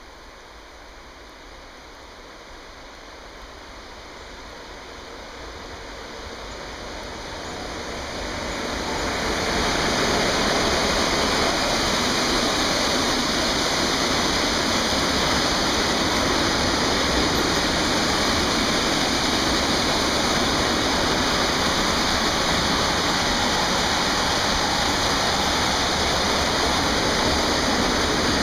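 Freight train hauled by an NMBS class 28 electric locomotive approaching and passing: a steady rolling noise of steel wheels on rails grows louder over about ten seconds. It then holds level as a long line of covered freight wagons rolls by.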